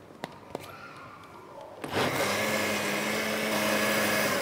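Pensonic countertop blender switched on about two seconds in, its motor running steadily as it blends a thick dried-chili spice paste, then winding down as it is switched off at the end. A couple of light clicks come just before it starts.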